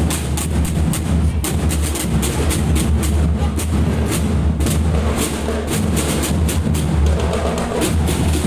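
Marching drum band playing: bass drums keep a steady low beat under a dense rhythm of quick, sharp drum strokes.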